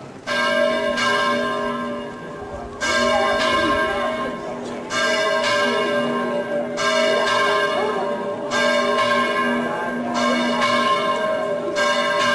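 Church tower bells ringing out, starting suddenly. Fresh strokes come every second or two, each left to ring on.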